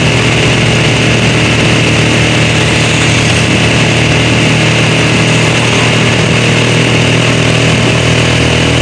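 Vehicle engine running at a steady, even speed, with a low hum under constant road and wind noise.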